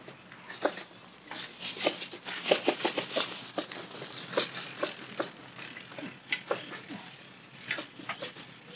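Bicycle rattling and clicking as it is ridden along the street, with a thick run of clicks about two to three seconds in.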